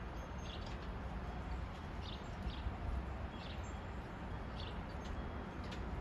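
Gusty wind of about 60 km/h blowing across the microphone with a steady low rumble, while short high chirps, likely from a small bird, come every second or so.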